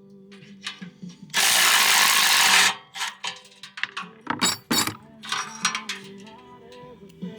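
Small Milwaukee cordless impact wrench running in one burst of about a second and a half, followed by scattered clicks and clanks of tools and fasteners, with background music.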